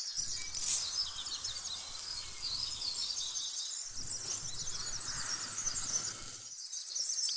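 Dry cement powder and then sand pouring into an empty metal soda can: a fine gritty hiss of many tiny ticks in two pours, with a short break about three and a half seconds in. A sharper tick comes under a second in.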